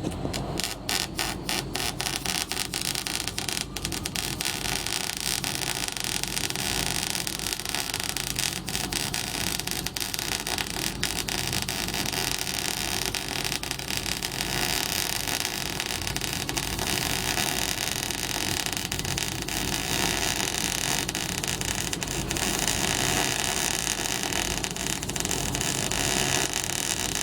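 Electric welding arc crackling and hissing steadily, sputtering with many separate sharp pops in the first few seconds as the arc gets going.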